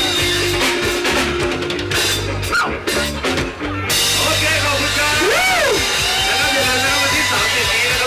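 Live band music: a drum kit and a horn section of saxophones and trombone playing an upbeat number. About four seconds in the sound cuts abruptly to a different, denser passage with sliding pitched lines over it.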